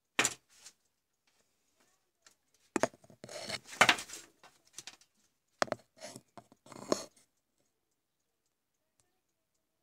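Handling noise at a workbench: a sharp click as a digital multimeter's rotary dial is turned, then two bouts of clicking and rustling as a small electrolytic capacitor is picked up and turned in the fingers. A faint regular ticking runs underneath.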